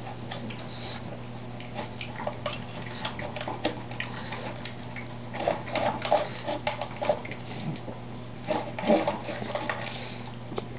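Pug eating and licking at a plastic food bowl: a run of quick, wet smacks, slurps and clicks of tongue and muzzle against the bowl, coming in louder clusters about halfway through and again near the end.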